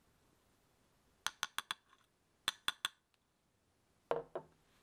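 Metal mesh sieve of cake flour clinking against a stainless steel mixing bowl: a quick run of four sharp clinks, then three more about a second later. A duller double knock follows near the end.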